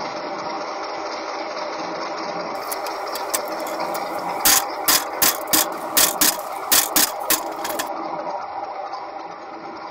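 A steady, dense mechanical rattling drone, with a quick run of about ten sharp knocks, roughly three a second, starting about four and a half seconds in.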